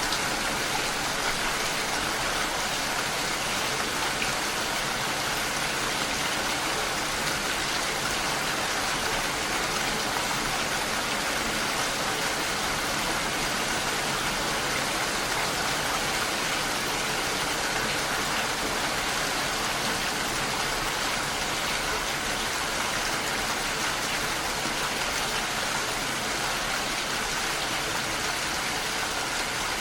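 Steady rain falling, an even hiss of countless drops.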